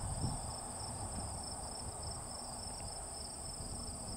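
Steady high-pitched chorus of insects chirring in the field, with a low rumble underneath.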